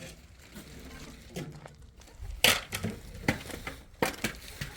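A series of sharp knocks and clinks, like hard objects being handled and set down. The loudest comes about two and a half seconds in, with several more over the next two seconds.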